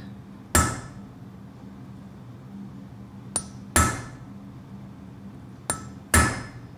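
Hammer striking a hand chisel to cut a rune line into a small forged pendant: three firm blows about two and a half seconds apart, the second and third each set up by a light tap just before, each blow with a short metallic ring.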